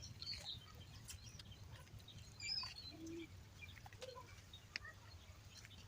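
Faint bird calls over a low background hum, with scattered chirps and clicks and a short warbling call about two and a half seconds in.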